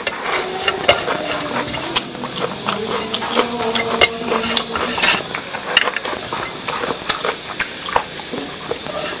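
Close-miked eating sounds: wet chewing, lip smacks and slurps of spicy noodles, with many sharp clicks and taps of fingers picking food off a metal tray.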